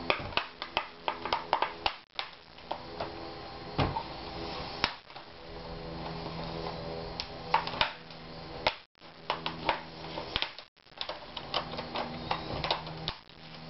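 Plastic snap clips of an Asus X54C laptop's screen bezel clicking and snapping in quick, irregular series as fingernails pry the bezel loose around its edge.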